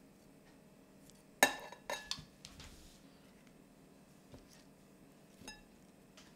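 Metal tongs clinking against a ceramic bowl as roasted cauliflower florets are set down: one sharp ringing clink about a second and a half in, two smaller clinks just after, then two faint taps later on.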